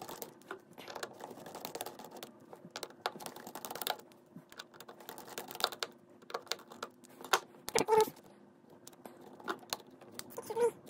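Small clicks and scrapes of a precision screwdriver turning out tiny screws inside a Samsung Galaxy Fold 3 phone, with fingers handling the internal parts. A brief louder pitched sound comes about eight seconds in.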